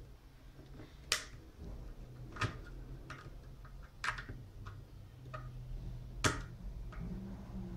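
Screwdriver clicking against a screw and the metal and plastic of a clothes iron's handle as it is screwed back together, a few sharp ticks spaced a second or two apart. A low steady hum runs underneath.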